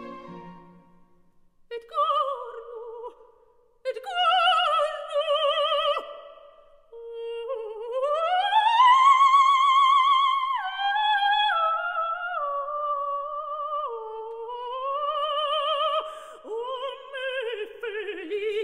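Operatic soprano singing a free, unaccompanied cadenza-like passage with wide vibrato: short phrases, then a long rising glide to a high held note about eight seconds in, followed by a stepwise descent.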